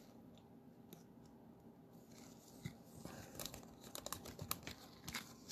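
Faint handling of trading cards and their plastic packaging: nearly quiet at first, then a run of small clicks and crinkles over the last two seconds or so.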